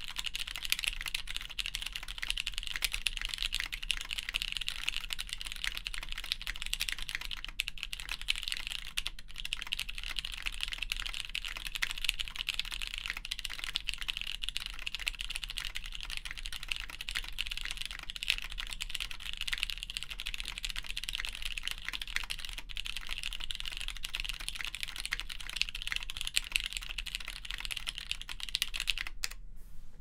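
Continuous fast typing on a Hex 3cv2 mechanical keyboard with Cherry MX Clear tactile switches, mounted plateless, and GMK keycaps: a dense stream of key clacks. Picked up by a condenser microphone.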